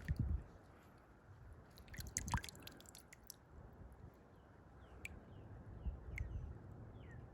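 Digging in soil: a few soft thumps and a short burst of crackly scraping clicks, with faint short falling chirps in the background.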